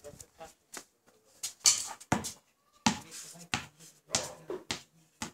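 A basketball bouncing on concrete: several sharp slaps at uneven intervals, the loudest about one and a half seconds in.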